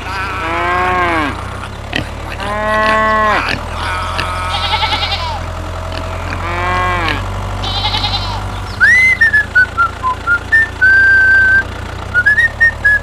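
Farm animals bleating three times, each call a rising-then-falling wavering cry, over a steady low hum. From about nine seconds in, a high whistled melody of short held notes and glides takes over.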